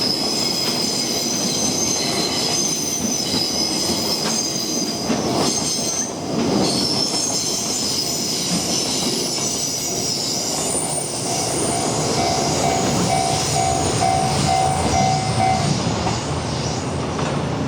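Railway wheels squealing steadily as a train passes, with wheels clattering over rail joints. From about 11 to 16 seconds in, a level-crossing warning bell rings in short, evenly spaced dings.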